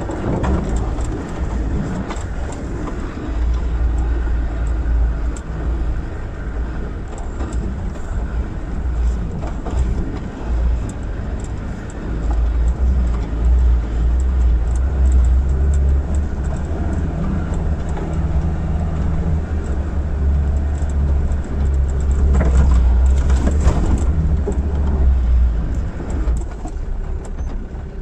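Land Rover Defender TD5's five-cylinder turbodiesel engine pulling at low speed over a rough dirt track, with frequent knocks and rattles as the vehicle bumps along. The rumble grows louder about halfway through and again toward the end.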